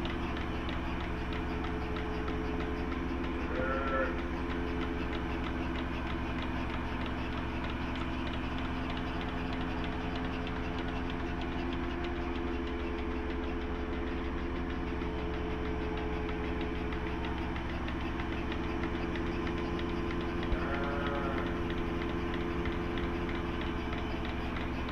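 A machine running steadily with a constant hum. Two short pitched calls stand out over it, one about four seconds in and one near the end.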